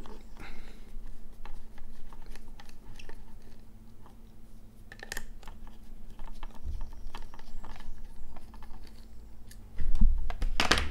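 Small precision screwdriver turning tiny screws out of an AKG K702 headphone's plastic ear cup, making light irregular clicks and scrapes. A louder handling thump comes near the end.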